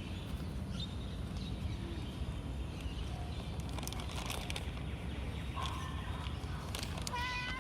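Steady low background rumble with a few faint chirps, then a domestic cat starts a meow near the end.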